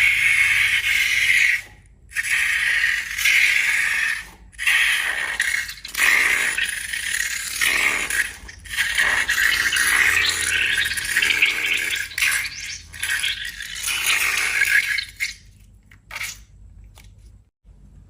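Slime being mixed in a bowl: scraping and rattling in bursts of a second or two with short breaks, dying away about fifteen seconds in.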